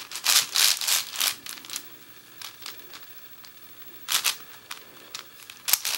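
A Moyu Aofu 7x7 speedcube's plastic layers being turned fast by hand, a quick run of short clacking turns in the first two seconds, a pause, then more turns from about four seconds in. The cube is near-new and not yet lubricated, and turns very smoothly.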